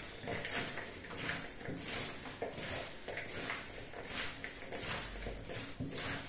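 Gloved hands tossing sliced vegetables dressed in oil and vinegar in a bowl: a rhythmic rustling, about two strokes a second.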